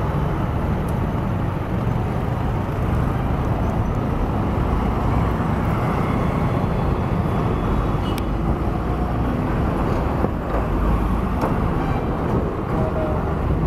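Steady road traffic at a busy intersection: motorcycle, car and bus engines running as vehicles pass close by.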